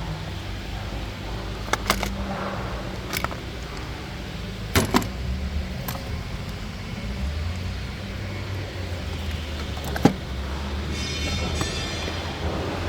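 Several sharp clicks and knocks from working on a Mercedes W204 car, over a steady low hum. A brief high-pitched ringing tone comes about eleven seconds in.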